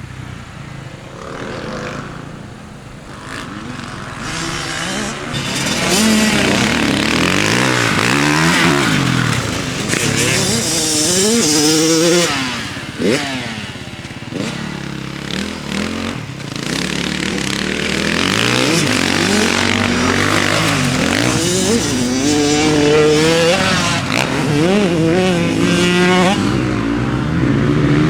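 Kawasaki KX100 two-stroke dirt bike engine revving hard, its pitch climbing and dropping again and again as it accelerates and shifts. It is quieter for the first few seconds, then louder.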